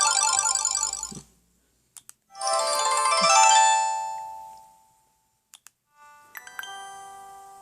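Siemens SL55 mobile phone playing its original ringtones, three short electronic tunes one after another. The first cuts off about a second in, the second ends on a long fading note, and a sparser melody starts near the end, with short ticks in the gaps between them.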